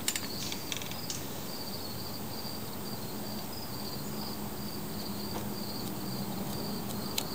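Insect trilling in the background, a thin high pulsing tone that goes on steadily, with a few light metallic clicks near the start and again near the end as a multi-tool's pliers are handled and unfolded.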